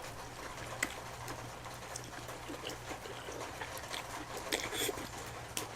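Quiet wet mouth sounds of eating cheesy noodles, with a few faint clicks and smacks, over a low steady hum.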